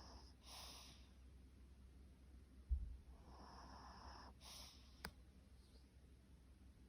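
A sleeping dog's faint snoring breaths: twice, a drawn-out breath followed by a short sharp puff, about four seconds apart. A dull low thump near the middle is the loudest sound, and a faint click follows about two seconds later.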